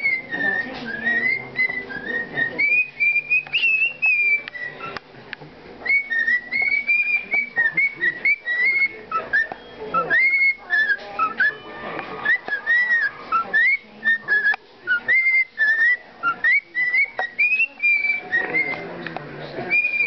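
Pet cockatiel whistling a song: a long string of clear whistled notes that swoop up and down in short phrases, with brief pauses between them.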